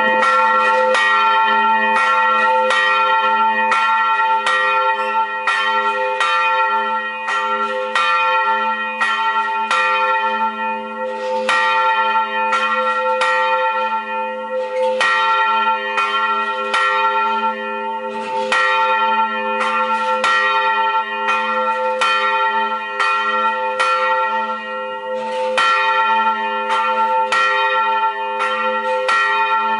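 Church bell ringing in rapid, even strokes, about two to three a second, each stroke's ring overlapping the next so the tone hangs on continuously.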